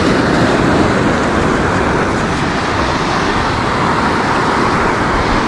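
Surf washing onto the beach: a loud, steady rushing noise with no break.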